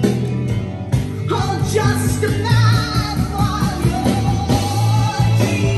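A song with a singer and band playing from a vinyl record through a vintage Luxman L450 amplifier and JBL L96 loudspeakers, heard in the room.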